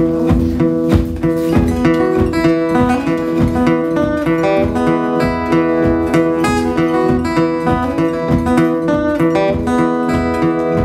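Acoustic guitar played fingerstyle: the thumb keeps a steady, unbroken bass pulse while the fingers pick a melody on the higher strings.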